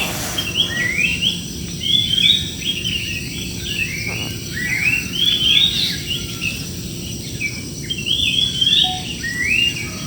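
A crowd of birds in a large tree chirping and singing, many short rising calls overlapping without pause, over a steady low hum.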